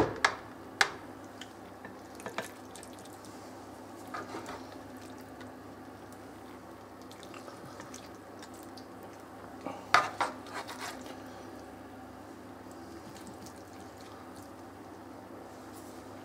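Plastic spatula scraping and knocking against a baking pan and a plate as cooked rice is scooped out and served: a few sharp clicks near the start, a cluster of knocks about ten seconds in, with a quiet steady hum between.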